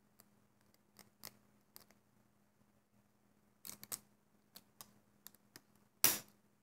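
Small clicks and snaps of a plastic Alpha Loom and rubber loom bands being handled, then one sharp knock about six seconds in as the plastic loom is set down on a wooden table.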